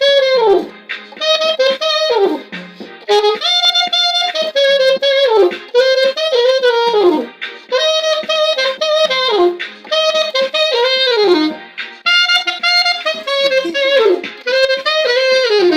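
Saxophone playing an Afrobeats melody in short repeated phrases, each ending with a downward bend in pitch.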